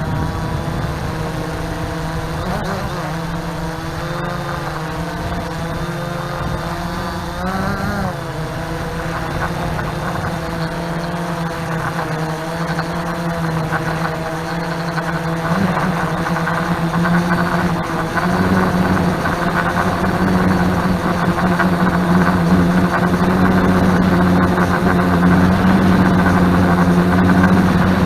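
Multirotor drone's motors and propellers buzzing steadily, the pitch wavering for the first several seconds, then getting louder from a little past halfway.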